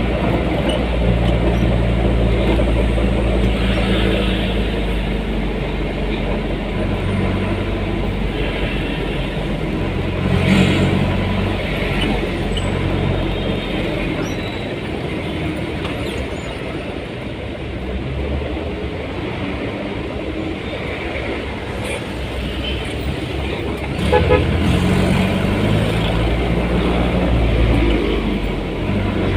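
Motor vehicle engine running while driving through city traffic, its note rising and falling with speed, with a horn toot among the traffic sounds.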